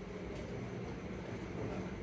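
Low, steady background hiss with a faint hum: room tone.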